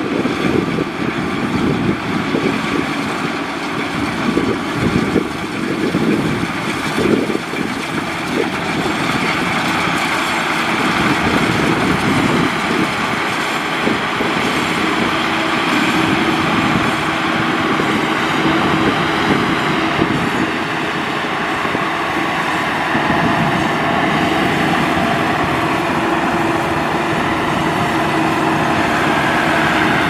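Maxxi Bimo 102L rice combine harvester running while harvesting, its engine and threshing machinery making a steady, continuous mechanical noise. Wind gusts on the microphone in the first several seconds, and a faint steady hum joins about halfway through.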